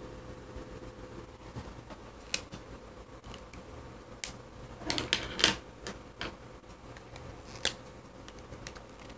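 Scattered small clicks and taps of pens being handled and swapped on a desk, with a quick cluster of them about five seconds in. A faint steady hum runs underneath.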